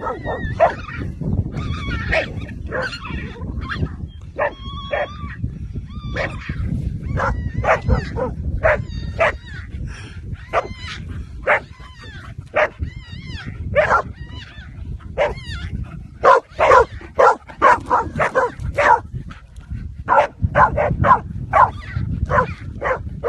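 An animal calling over and over in short, high yips and squeals, some wavering in pitch, coming thickest about two thirds of the way through, with a low rumble underneath.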